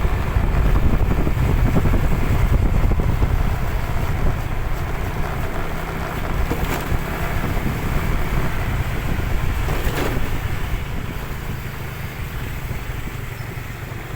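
Wind buffeting the microphone over the low rumble of a vehicle on the move, slowly getting quieter toward the end.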